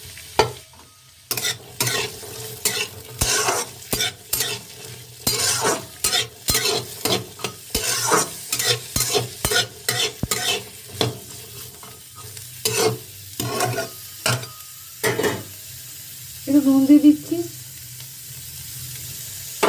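Carrots, beans and peas frying in hot oil in a metal kadai, sizzling steadily, while a spatula stirs them and scrapes the pan in irregular strokes about one or two a second that stop about 15 seconds in. A brief, louder pitched sound comes near the end.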